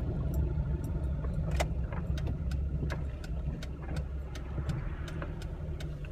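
Road and engine noise heard inside a moving car's cabin: a steady low rumble, with light scattered clicks.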